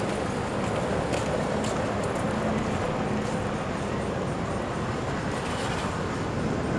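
Steady city street noise, mostly a low traffic rumble with a faint engine hum.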